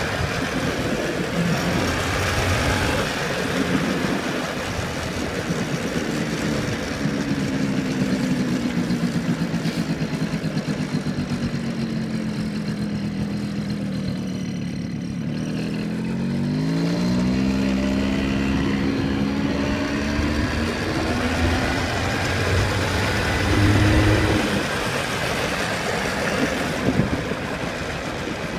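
Small Yamaha vehicle's engine running while driving along a street, over road and wind noise. The engine note sinks slowly, then climbs sharply a little past halfway as it speeds up, and holds there.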